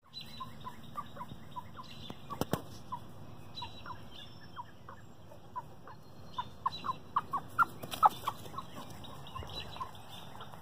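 Chickens clucking: a string of short, dropping clucks, a few a second, coming thicker between about six and eight seconds in. A sharp click about two and a half seconds in.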